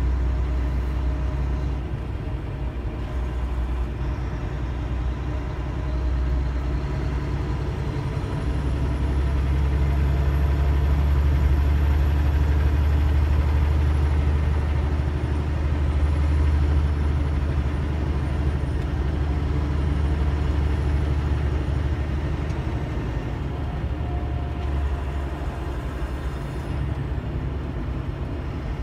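Steady low rumble of a car driving on a paved road, heard from inside the cabin: engine and road noise, swelling slightly midway.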